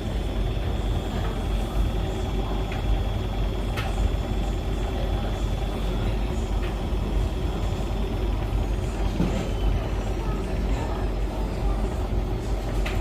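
Beko washing machine spinning with a slightly unbalanced load, running together with a Hoover tumble dryer: a steady low mechanical rumble with a few light knocks.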